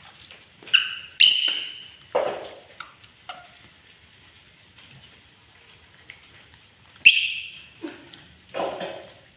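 Young pet macaque screaming: three shrill, high-pitched screams, the loudest about a second in and again near the end. A couple of lower, rougher calls come between them.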